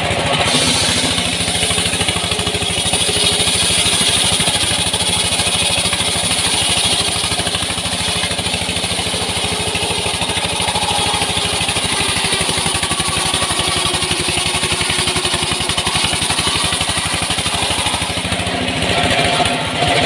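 Small engine running steadily at an even speed, powering the saw that cuts sengon wood.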